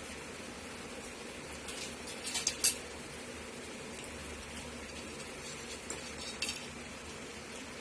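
Metal spoon and fork clinking against a plate: a quick run of clinks about two and a half seconds in, the last one the loudest, and another short clink about six and a half seconds in, over a steady faint hiss.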